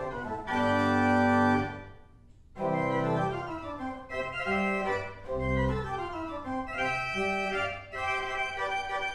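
Pipe organ playing. A full held chord cuts off a little under two seconds in, and after a short pause several voices resume in moving lines.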